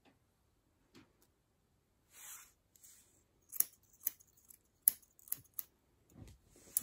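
Grooming scissors snipping through a standard poodle's curly coat: a brief rustle, then about six sharp snips in the second half.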